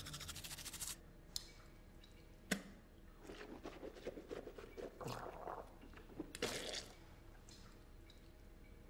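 Toothbrush scrubbing teeth in fast strokes for about a second, then quieter wet, squishy mouth sounds of toothpaste foam, with a couple of sharp clicks.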